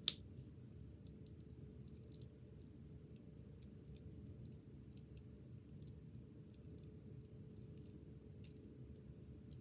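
Rubik's cube being turned by hand: faint, irregular clicks of the layers snapping round, with one loud sharp click at the very start.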